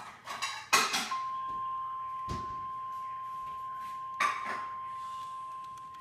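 NOAA Weather Radio 1050 Hz warning alarm tone, a steady single-pitch tone that starts about a second in, heard through computer speakers from an online stream. A sharp knock comes just before the tone begins and another about four seconds in.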